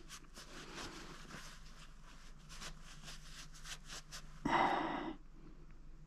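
Cloth rag rubbing and wiping over a washing-machine drum seal: faint scratchy handling noises, with a short louder rush of noise about four and a half seconds in.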